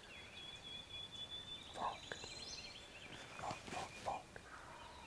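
Wild birds calling in woodland: a long high whistled note, then a run of quick high chirps, with a few short louder calls near the middle and between three and a half and four seconds in.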